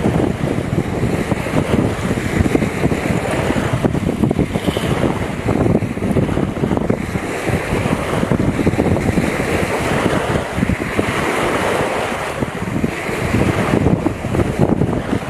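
Wind buffeting the microphone: a loud, uneven rushing noise heaviest in the low end.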